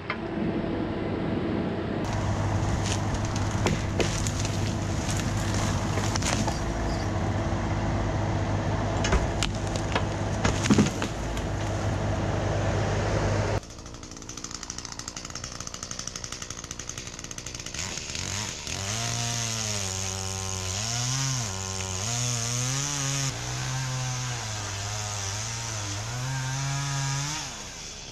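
Chainsaw cutting a dead pine, loud, with a few sharp cracks. About halfway through the sound drops suddenly, and the saw's engine pitch then rises and dips again and again as it works.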